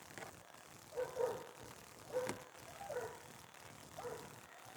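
A dog giving a series of short yips, about five in a few seconds.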